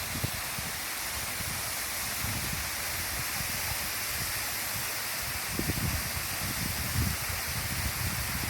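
Waterfall rushing: a steady, even hiss of falling water. Irregular low rumbles come and go beneath it, strongest from about five and a half seconds in.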